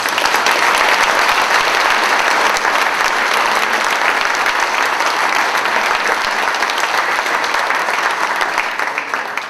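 Audience applauding loudly, a dense mass of clapping that eases off near the end.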